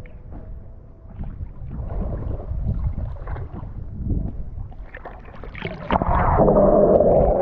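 Lake water lapping and splashing around a camera held at the surface. About six seconds in, the camera goes under water and the sound turns into a louder, steady underwater rush and gurgle.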